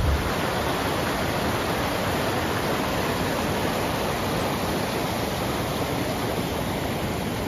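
Glacier-fed mountain stream rushing steadily over rocks and a low stone ledge.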